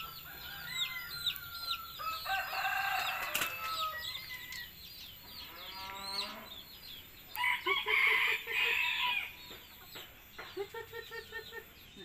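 Domestic chickens calling and clucking, with a run of quick, thin high chirps through the first half. Louder calls come about eight seconds in, then a quick rhythmic series of clucks near the end.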